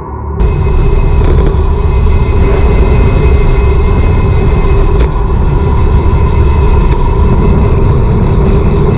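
A loud, steady low rumble with a held hum above it, coming in suddenly about half a second in.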